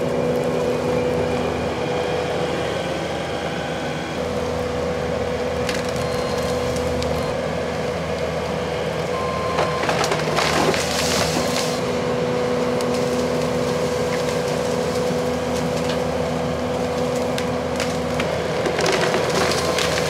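Compact track loader's engine running steadily with a constant whine while its hydraulic tree shears cut through large willow limbs. Wood cracks and splinters about ten seconds in, and again near the end, as limbs break off.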